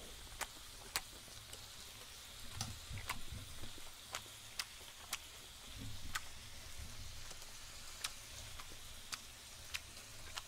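Close-miked chewing of spicy pork bulgogi, with a dozen sharp mouth clicks and smacks and a couple of soft low thumps, over a faint steady sizzle from the hot pan.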